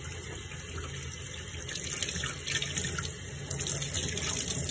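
Water tap running steadily into a sink, with splashing as a face is scrubbed under it to wash off face paint.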